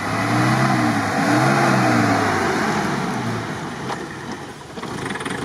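Off-road SUV's engine revving up and easing off twice as it drives through the grass, over a broad rushing noise, then dropping back to a quieter, steady run.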